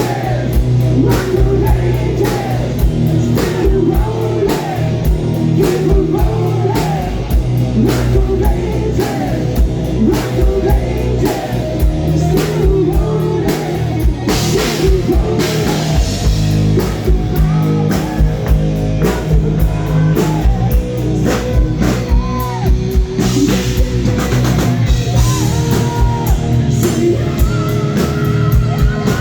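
A live rock band playing loudly: a singer over a driving drum kit and electric guitar.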